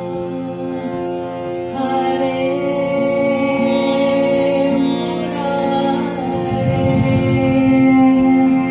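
Live kirtan music: women singing a devotional chant over sitar and a held drone. The band grows fuller and a little louder about six and a half seconds in.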